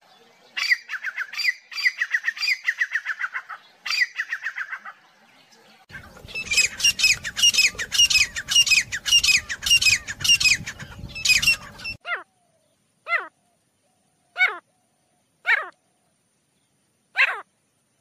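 Grey francolin (teetar) calling. First comes a quick run of short repeated notes. About six seconds in, a louder, denser series of calls starts over a low rumble; from about twelve seconds there are single calls, each falling in pitch, one every second or so.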